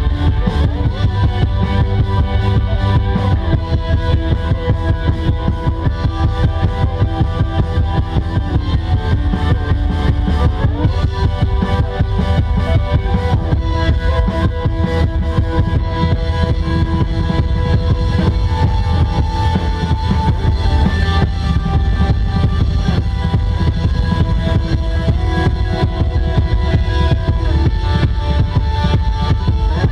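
Post-rock band playing live: a drum kit keeping a fast, steady beat under sustained electric guitar notes that change every few seconds.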